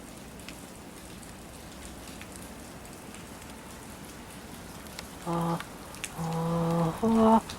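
Steady rain falling, with scattered drop ticks. About five seconds in, three short held notes sound over it, the third higher than the first two.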